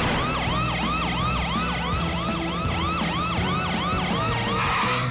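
Police truck siren in a cartoon, with a fast rising-and-falling wail that repeats about three times a second, over background music.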